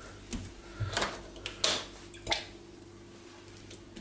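Damp fingertips pressing into soft, sticky bread dough on a wooden worktop: four or five short soft pats in the first two and a half seconds, then quieter.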